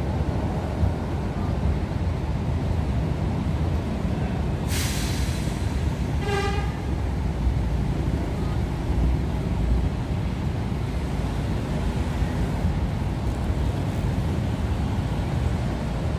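Diesel coach engine idling with a steady low rumble. About five seconds in, a sharp hiss of compressed air released from the air brakes, and about a second later a short pitched toot.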